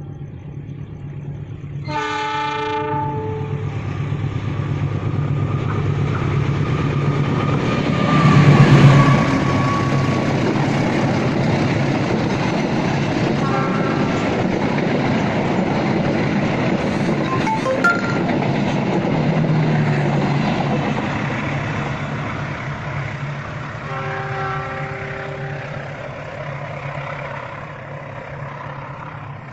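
Passenger train sounding its horn about two seconds in, then passing with a steady rumble and wheel noise that is loudest around eight to nine seconds and slowly fades. Shorter horn-like tones sound again twice later on.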